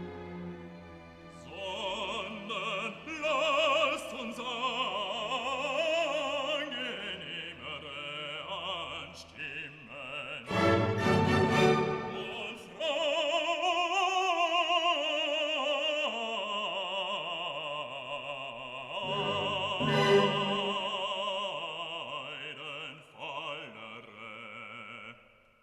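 Background music: an operatic singing voice with vibrato over classical orchestral accompaniment.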